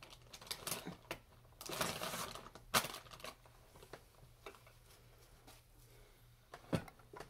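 Handling noises: scattered light clicks and taps, with a brief rustle about two seconds in as a tissue is fetched to wipe eyeshadow swatches off a hand.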